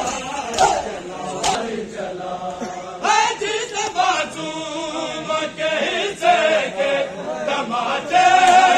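Men's voices chanting a noha, a Shia mourning lament, together in unison, with sharp slaps of hands on bare chests (matam) about once a second at the start. The chanting grows louder near the end.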